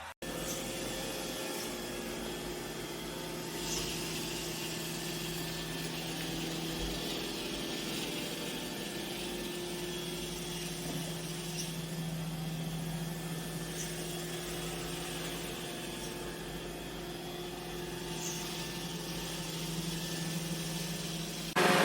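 iRobot Roomba j7+ robot vacuum running: a steady motor hum with a few faint light clicks. It turns abruptly louder near the end.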